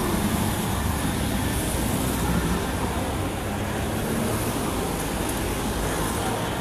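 Steady city traffic noise, with the engine rumble of a bus and cars passing close by on the road.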